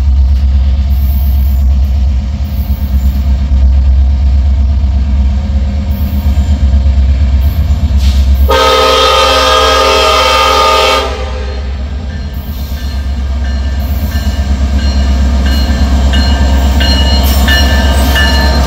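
Approaching diesel freight train with a heavy low rumble. The lead locomotive, an EMD SD70ACe in Penn Central heritage paint, sounds one long chord on its multi-chime air horn for about two and a half seconds midway through. The rumble then pulses louder as the engines draw up alongside.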